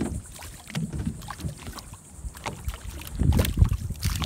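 Hooked fish thrashing and splashing at the water's surface beside a boat's hull, in irregular splashes, with a burst of louder splashing about three seconds in.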